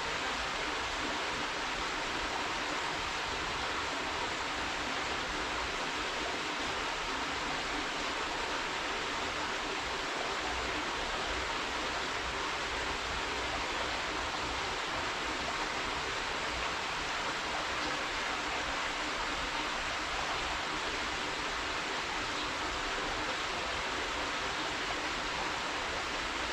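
Small waterfall pouring steadily into a pool, a constant rushing hiss of falling water without breaks or changes.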